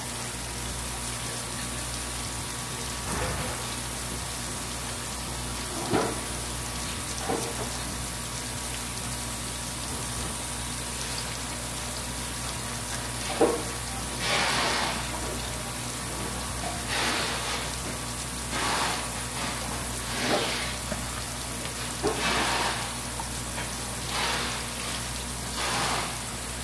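Water from a tap splashing in short surges every second or two, over a steady background hiss and hum, with a few sharp knocks.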